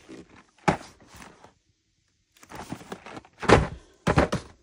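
Cardboard boxes of chocolates knocking and being set down inside a large cardboard shipping box: a sharp knock about a second in, then some shuffling and two louder thuds near the end.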